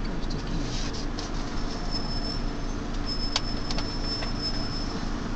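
Steady low hum of a vehicle's engine running at low speed, heard from inside the cab. A few light clicks and a thin high whistle sound faintly over it around the middle.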